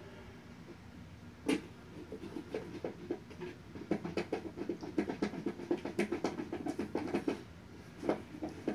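Screw being driven by hand into a flat-pack desk panel: a sharp knock about a second and a half in, then a quick run of small clicks for several seconds, stopping near the end.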